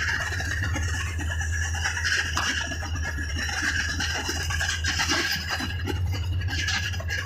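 A vehicle's engine and road noise drone steadily, with many light irregular rattles and ticks over the top.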